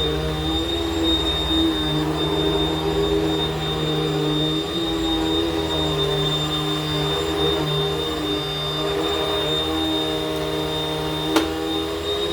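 WAP Power Speed 2-in-1 upright vacuum cleaner's 2000 W motor running steadily, a high whine over a lower hum. A sharp click about eleven seconds in.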